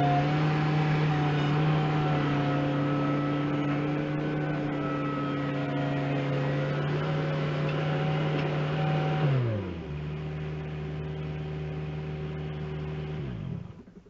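New Holland skid steer loader's diesel engine running steadily at working throttle. About nine seconds in it throttles down to a lower idle, and near the end it winds down and shuts off.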